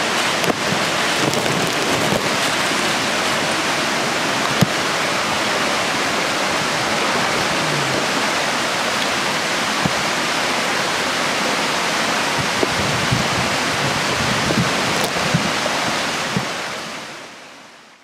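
Steady rush of small waterfalls and cascades spilling over boulders in a narrow rocky ravine, with a few faint knocks, fading out near the end.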